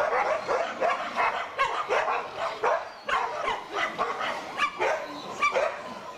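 Dogs barking and yelping in a rapid string, about three calls a second, during a dog fight in which a Rottweiler and a Doberman maul another dog.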